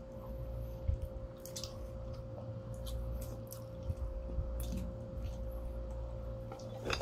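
Close-miked chewing of pizza crust, with soft wet mouth sounds and a few short crackles, over a steady low hum.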